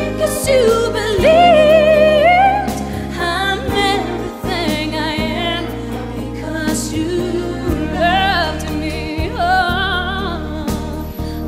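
Music: a song with a singer holding long, wavering notes over instrumental backing.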